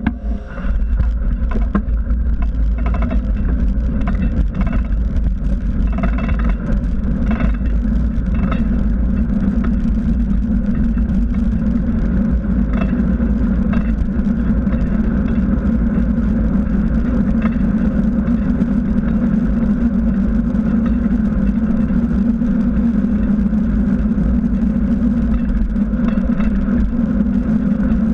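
Steady rush of wind buffeting a bicycle-mounted camera's microphone, mixed with knobby tyre and road rumble on asphalt as the bike rolls along. A few knocks sound in the first several seconds.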